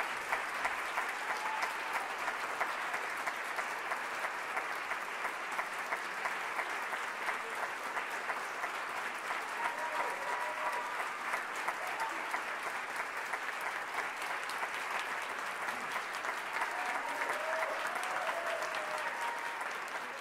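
Theatre audience applauding steadily, a dense crackle of many hands clapping, with a few voices calling out now and then during the curtain call.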